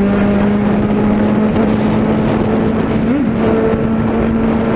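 Suzuki Bandit 650N's inline-four engine running through an aftermarket 4-into-1 exhaust while riding, its pitch holding steady and slowly rising, with wind rush on the microphone.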